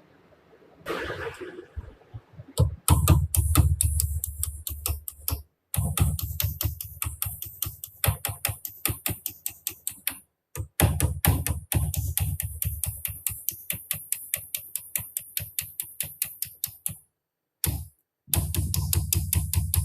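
Background electronic music with a fast, even ticking beat over a deep bass. It drops out abruptly a few times and starts again.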